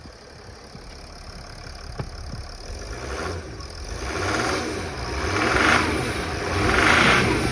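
Mercedes OM642 3.0 V6 turbodiesel idling, then revved twice from about four seconds in, the engine and turbocharger rising and falling with each rev.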